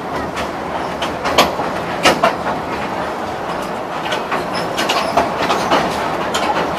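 Passenger train rolling across a steel truss bridge, heard at an open carriage window: a steady running rumble with irregular sharp clacks and knocks from the wheels and track.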